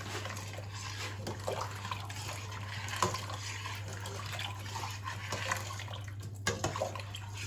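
Lentil soup being stirred with a spoon in a pot: liquid swishing, with occasional light knocks of the spoon against the pan, over a steady low hum.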